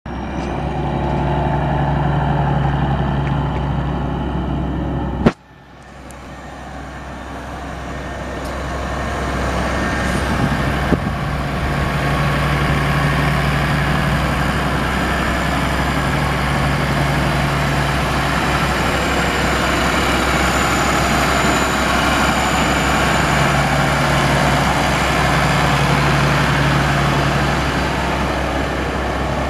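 Massey-Ferguson 6170 tractor's Perkins six-cylinder turbo diesel engine running steadily. About five seconds in there is a sharp click and the sound drops away suddenly, then builds back up over several seconds.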